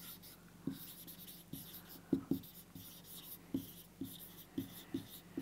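Dry-erase marker writing on a whiteboard: the felt tip scratches and squeaks through each stroke, with light irregular taps as the marker meets the board.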